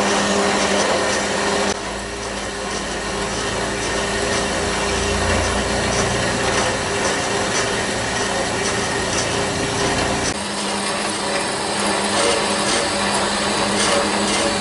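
Horizontal metal-cutting band saw running and cutting through a steel block: a steady motor hum under the rasp of the blade in the cut.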